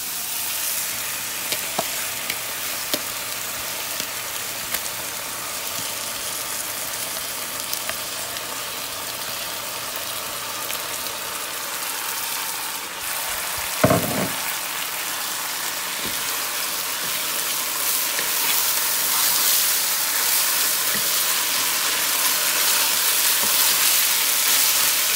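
Sizzling in a nonstick pot as washed basmati rice is tipped onto hot oiled vegetables and tomato paste and stirred in with a wooden spoon; the sizzle grows a little louder near the end as the stirring goes on. One brief thump about halfway through.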